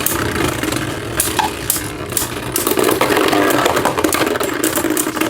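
Two Beyblade Burst spinning tops whirring in a stadium, with a steady spinning hum and frequent sharp clicks as they clash.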